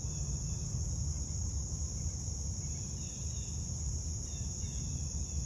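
A steady, high-pitched, unbroken insect trill, typical of night-singing crickets, over a constant low rumble, with a few faint short chirps about three seconds in and again near four and a half seconds.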